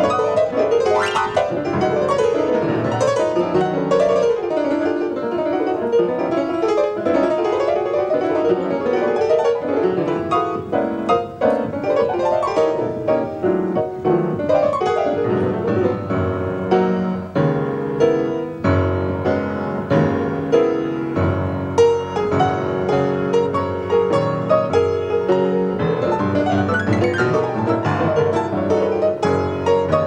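Solo grand piano in free-jazz improvisation: dense, fast runs and clustered chords played without pause. Deep bass notes sound about two-thirds of the way through.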